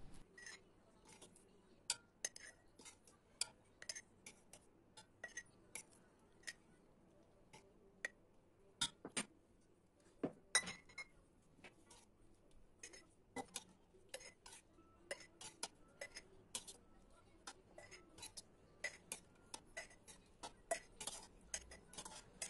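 A metal ladle clinking and scraping against a stainless steel pot and the rims of glass jars in many light, irregular taps as whole figs in syrup are spooned into the jars.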